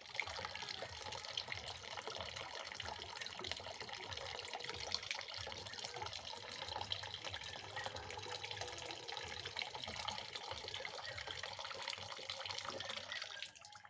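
Water from a wall tap pouring steadily into a plastic bucket, splashing into the water already in it.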